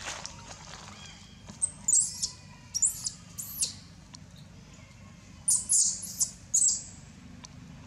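Baby long-tailed macaque crying in short, very high-pitched arching squeals, in quick runs of two to five calls, with a pause between runs.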